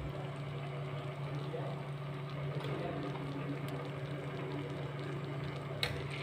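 Pot of water with coriander seeds and ginger simmering on the stove, a steady hiss over a low steady hum, with a short click near the end.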